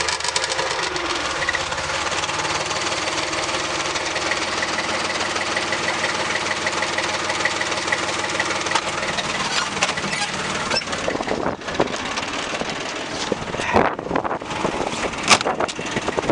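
Foton 254 compact tractor's diesel engine running steadily at idle with a fine, regular rattle. From about two-thirds of the way in the sound turns uneven, with scattered sharp knocks and clatter.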